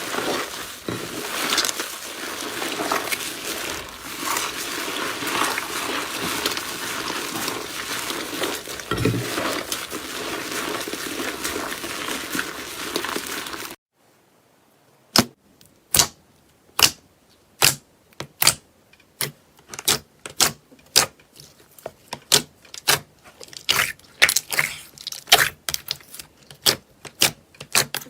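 Slime being squished and worked by hand, a dense wet crackling that cuts off abruptly about halfway through. After the cut, sharp separate pops or clicks, about one or two a second, come from slime being pressed.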